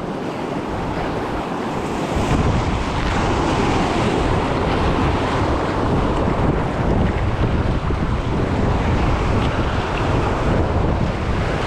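Fast river water rushing around a raft, mixed with wind buffeting the action-camera microphone, a steady noise that grows heavier in the low end about two seconds in.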